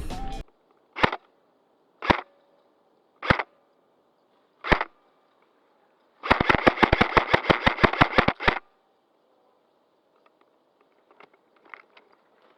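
Airsoft gun firing: four single shots about a second apart, then a rapid full-auto burst of about two seconds, roughly nine shots a second. A few faint clicks follow near the end.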